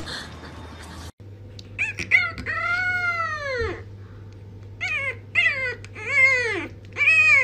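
A French bulldog puppy howling: a couple of short yips, then one long rising-and-falling howl about three seconds in, then a string of shorter howls near the end.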